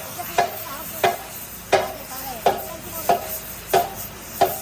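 Metal being struck over and over in a steady rhythm, about seven blows, roughly one every two-thirds of a second, each with a short metallic ring.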